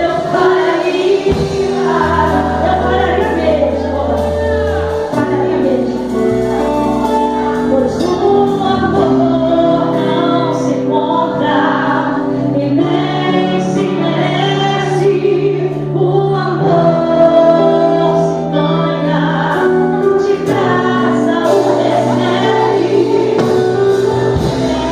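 Christian worship song: a woman singing with choir-like backing voices over instrumental accompaniment with long held bass notes.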